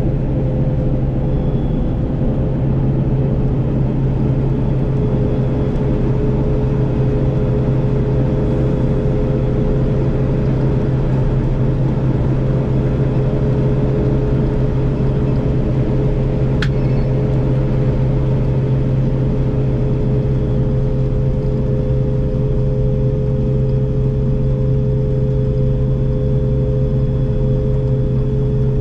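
Combine harvester running steadily while harvesting barley: a constant deep engine hum with two steady whining tones above it, and one brief click partway through.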